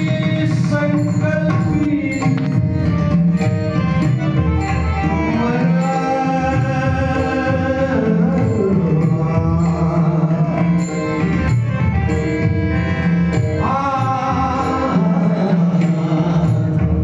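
Marathi devotional bhajan singing by a male voice, with a mridang (pakhawaj) drum keeping a steady beat underneath.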